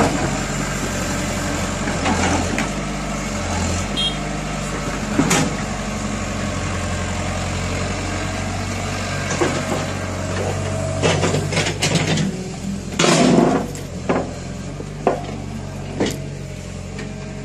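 Diesel engine of a Sumitomo tracked excavator running steadily. In the second half, several sharp knocks and clanks, the loudest a short rattling burst about two-thirds of the way through.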